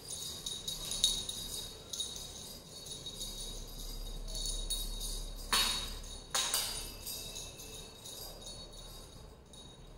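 Small bells jingling in irregular shakes and clicks, loudest about a second in, with two more strong jingles a little past halfway.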